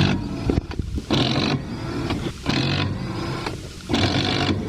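A power tool run in four short bursts of about half a second each, roughly a second and a half apart.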